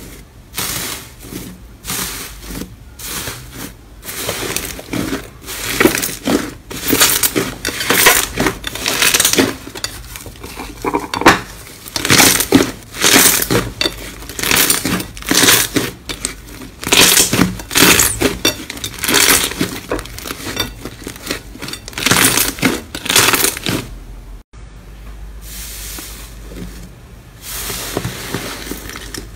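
Metallic foil on a slime mound crinkling and crackling as hands press, crumple and pull the slime apart, in dense runs of crisp crackles. After a cut near the end, quieter, softer squishing of a large green slime being kneaded.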